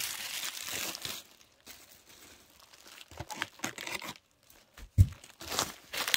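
Packing foam crinkling and tearing as it is pulled off and handled, in rustling bursts with a quieter stretch in the middle. A single sharp thump about five seconds in, the loudest sound.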